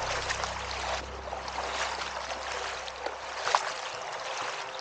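Kayak paddle blades dipping and pulling through calm river water, with a stroke splashing about every second and a half and the loudest near the middle, over a steady trickle of water.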